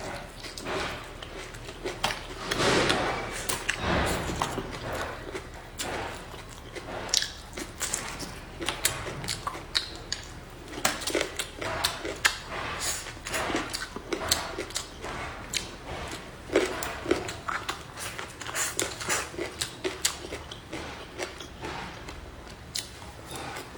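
Eating sounds: close-up chewing and crunching with many sharp utensil clicks against dishes, scattered unevenly and loudest a couple of seconds in.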